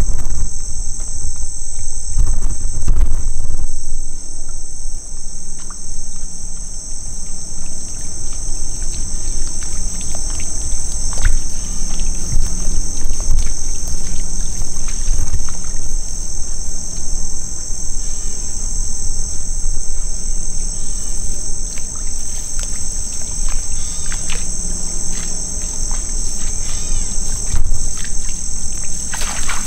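Dense chorus of insects shrilling steadily at a high pitch, crickets among them. A low rumble on the microphone in the first few seconds.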